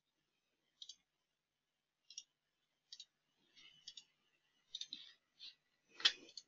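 Faint, short clicks, roughly one a second and irregularly spaced, with a slightly louder one near the end.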